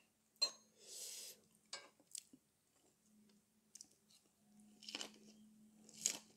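A person biting into a lettuce wrap of dak galbi and chewing, heard close up, with sharp crisp crunches near the end.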